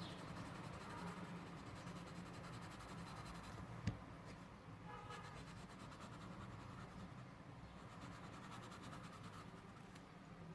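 Faint scratching of a pencil shading on paper, with a single sharp tap about four seconds in.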